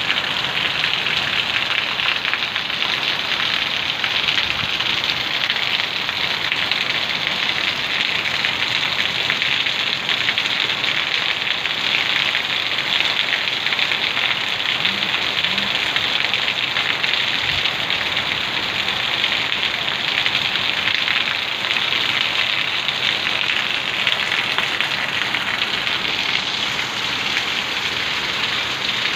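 Heavy rain falling steadily in a constant, even hiss, with water pouring off the edge of a corrugated roof.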